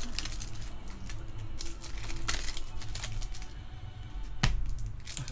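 Foil trading-card pack wrappers crinkling and crackling as they are handled and torn open, with several sharp crackles, the loudest about two and four and a half seconds in, over background music.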